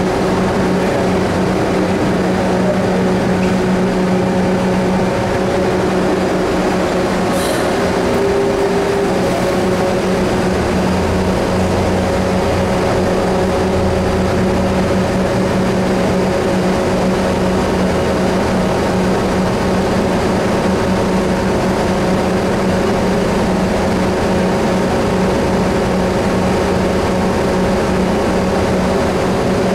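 A PATCO subway train, a car of the original fleet, standing at the platform with its doors open. Its onboard equipment makes a steady, loud hum of several held tones over a noisy rumble.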